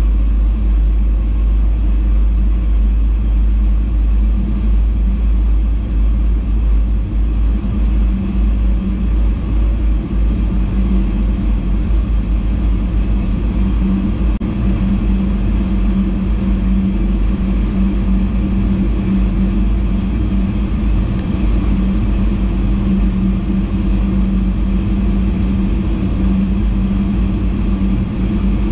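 Steady running noise of a VIRM double-deck electric intercity train at speed, heard inside the driver's cab: a low rumble of wheels on rail with a steady hum that grows stronger about ten seconds in.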